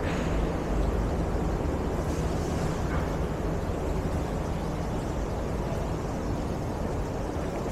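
City street traffic: a steady rumble of passing vehicles, with a brief faint hiss about two and a half seconds in.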